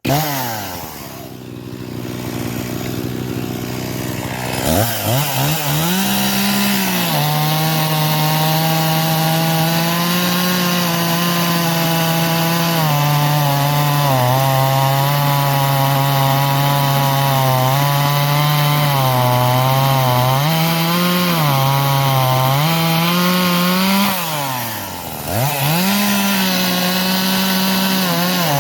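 Echo 500P 50cc two-stroke chainsaw cutting wood. It settles low for the first few seconds, then revs up about five seconds in and holds at full throttle, its pitch dipping again and again as the chain bites under load. Near the end it drops off briefly and revs back up into the cut.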